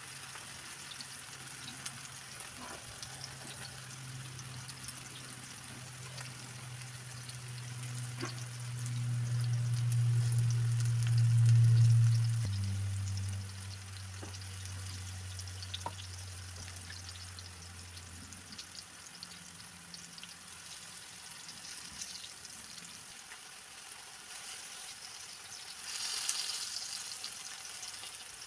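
Plantain slices frying in oil in a non-stick pan, with a steady sizzle and small crackles. A low hum swells from a few seconds in, is loudest around twelve seconds, then drops lower in pitch and fades out by about eighteen seconds. The sizzle flares briefly louder near the end.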